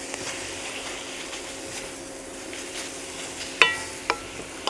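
Sausage, chicory and potatoes sizzling in oil in a stainless steel wok as they are stirred. Near the end come two sharp knocks half a second apart, each setting the metal pan ringing briefly.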